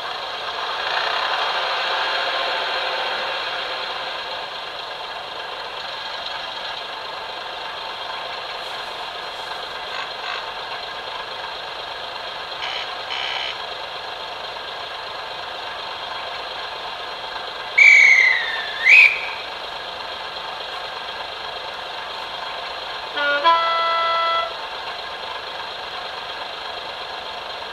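Simulated diesel railcar sounds from a Zimo sound decoder, played through the model's small onboard speaker: the engine idling, then two short, loud gliding whistle notes about two-thirds of the way through. A few seconds later the horn sounds once for about a second.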